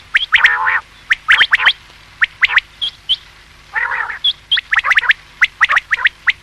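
Common quail calling: repeated sharp, quickly falling whistled notes in short rapid groups, with raspy, growling notes about half a second in and again about four seconds in.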